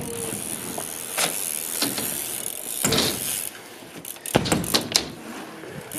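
BMX bike riding on concrete ramps: tyres rolling, with a few scattered knocks, then a quick cluster of loud sharp knocks and clatters about four and a half seconds in as the airborne bike lands.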